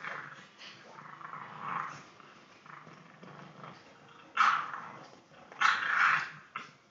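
English bulldog puppy growling and grunting in play while it wriggles on its back, in short bursts; the two loudest come in the second half, the later one lasting most of a second.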